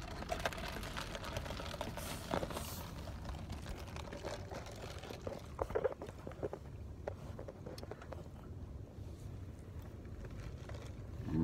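Ice and fruit pieces sloshing and rattling in a plastic cup of iced Starbucks Refresher as it is swirled to mix it, with a few louder clicks along the way.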